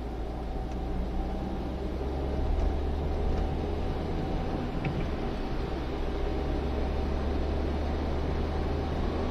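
Citroën XM on the move, heard from inside the cabin: a steady low engine and road rumble.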